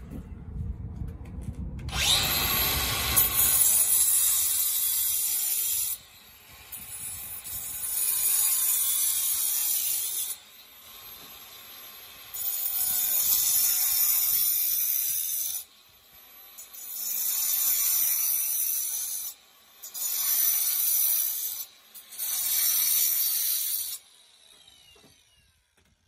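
Angle grinder with a cutting disc sawing into a concrete block wall in about six separate cuts of two to four seconds each. The cutting noise drops away sharply between cuts, and the grinder winds down near the end.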